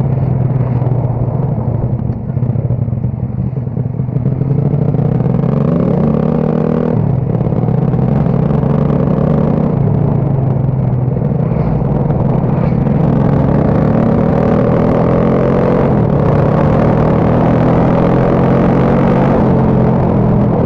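Motorcycle engine running under way, its pitch climbing as it accelerates and dropping sharply at gear changes about seven and sixteen seconds in.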